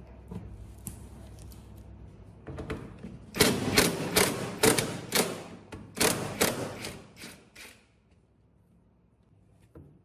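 DCA 20 V cordless impact driver hammering on a refrigerator door-hinge bolt in a run of short, loud bursts from about three seconds in until nearly eight seconds, after faint tool clicks.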